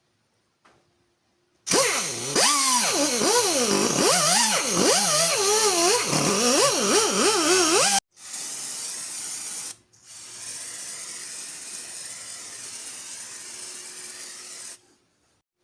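A power tool running loud for about six seconds, its whine rising and falling in pitch as the speed changes. It cuts off suddenly and is followed by two stretches of quieter, steady hiss.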